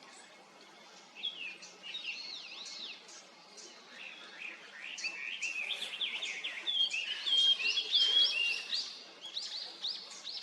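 Japanese grosbeak calling: many quick whistled notes that sweep up and down. They start about a second in and grow denser and louder in the second half.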